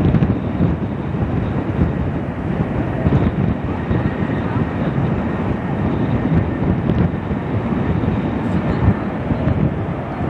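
Wind buffeting the microphone over the low, steady rumble of a British Airways Airbus A380's Rolls-Royce Trent 970 jet engines as the airliner taxis, with a faint steady whine.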